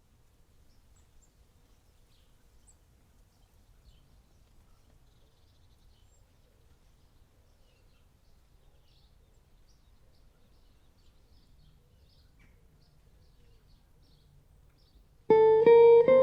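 Faint low room noise with a few tiny ticks, then about a second before the end guitar music starts suddenly and loudly, with plucked notes.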